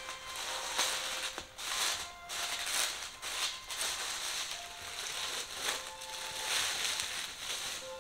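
Rustling and crinkling in repeated bursts, with soft background music underneath.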